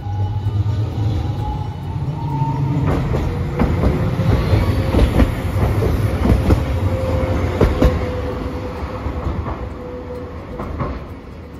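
A low-floor articulated tram passes close by with a heavy rumble. Its motor whine rises in pitch over the first couple of seconds, and its wheels clack sharply over the rail joints in the middle of the pass, thinning out near the end.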